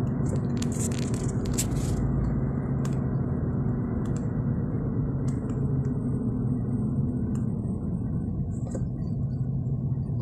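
Steady engine and tyre noise inside a moving car's cabin, a low even hum with a few faint clicks.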